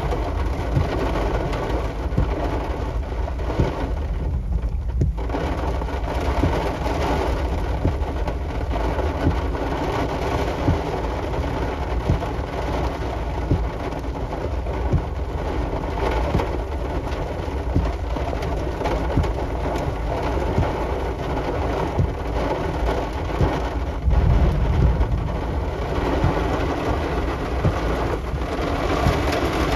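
Steady downpour of rain with dense pattering during a thunderstorm. A low rumble of thunder swells late on.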